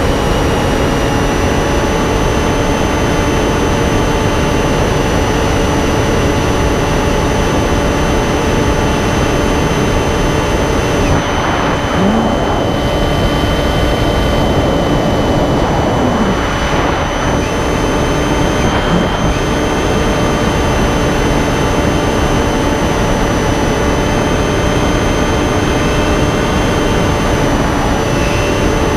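Electric motor and pusher propeller of a Finwing Penguin FPV model plane running steadily in flight, heard from on board: a loud rushing noise with a steady whine on top that shifts slightly in pitch a few times partway through.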